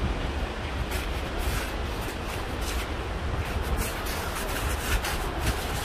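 Footsteps on an icy, snow-edged paved trail, an irregular run of short sharp steps starting about a second in, over a steady low rumble.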